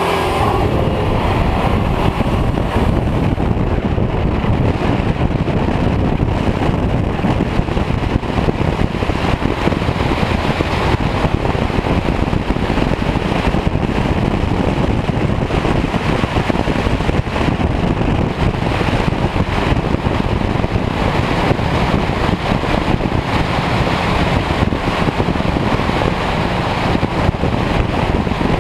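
Steady wind rush and road noise from a camera mounted outside on the flank of a turbocharged Buick Regal T-Type cruising at a constant pace, the wind buffeting the microphone over the tyre and engine noise.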